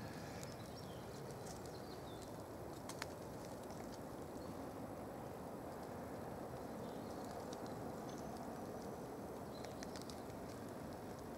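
Footsteps through dry fallen leaves on a forest floor, a steady rustle with a sharp click about three seconds in, and a few faint bird chirps.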